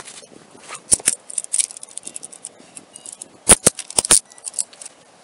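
Metal handcuffs being snapped onto a suspect's wrists: sharp metallic clicks and jangling, two about a second in and a quick run of four around three and a half to four seconds in, over clothing rustling against the body camera.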